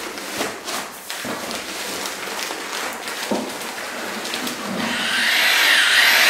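Paper sack of self-levelling floor compound rustling as it is handled and tipped, then the powder pouring into a plastic tub of water. About five seconds in, a loud hiss sets in as the paddle mixer drill starts in the tub.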